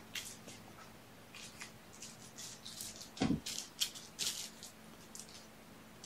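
Kittens batting and scuffling small toys across a carpeted floor: light rattling and scratchy rustles, with one soft thump about three seconds in.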